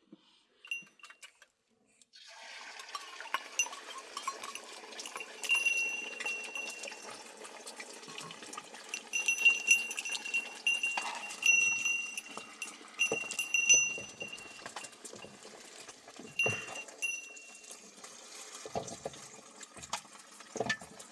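Livestock bells clinking and ringing irregularly amid the movement of a herd, starting suddenly about two seconds in after near silence.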